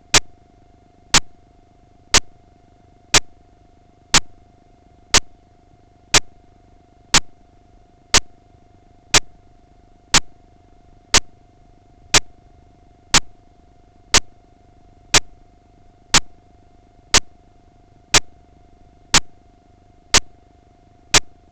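Sharp clicks repeating evenly about once a second, over a faint steady hum.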